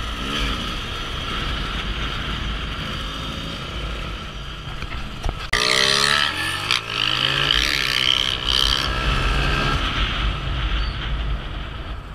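Motorcycles riding: a steady run of engine and wind noise, then about halfway through it turns suddenly louder, with engine pitch rising and falling as motorcycles rev close by.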